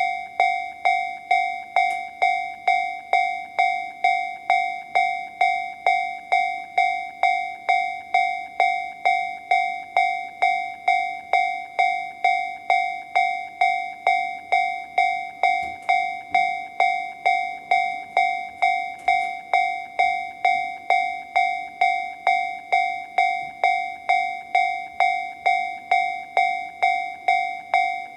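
Japanese railway level-crossing alarm in the Tobu 'sound C' pattern, from a Toho Denki TA3-VR electronic crossing warning sound generator: a bell-like electronic ding repeated about twice a second, each strike dying away quickly, at a steady volume.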